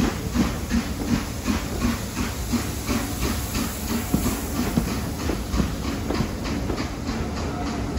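BR Standard Class 4 4-6-0 steam locomotive 75069 pulling a train away from a station, its exhaust beating about three times a second as its coaches roll past.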